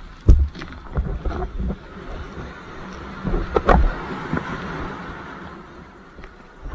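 Sea water splashing and sloshing around a bodyboard in the surf, with a couple of sharper splashes, one shortly after the start and one a little past halfway.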